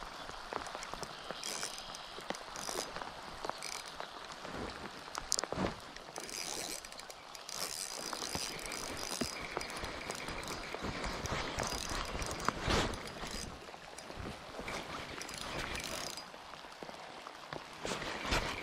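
Spinning fishing reel being cranked on a retrieve: a light mechanical whirring with small clicks from the handle and gears.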